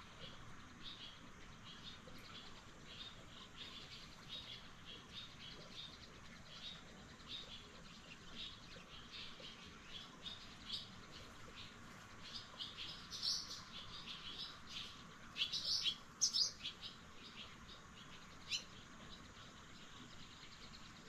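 Small birds chirping, short repeated chirps two or three times a second, with a few louder chirps about two-thirds of the way in.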